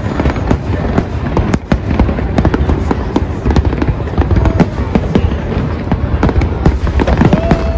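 Large aerial fireworks display going off in quick succession: a dense string of sharp bangs and crackles over a continuous low rumble.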